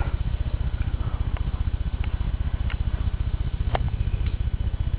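Sleeping dog snoring: a steady, low, rapid flutter with a few faint clicks over it.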